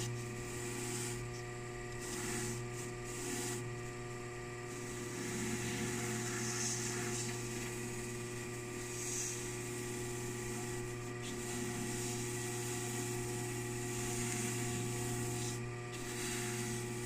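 Dental polishing lathe running steadily with a black bristle brush wheel, rubbing against the acrylic of a lower denture with polishing paste. It gives a steady motor hum with a rough brushing hiss over it, the first polishing step that smooths away the roughness left by the acrylic bur.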